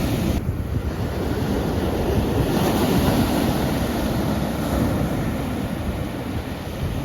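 Ocean surf: waves breaking and washing in as a steady rush with a low rumble, with a fresh wave surging up about two and a half seconds in.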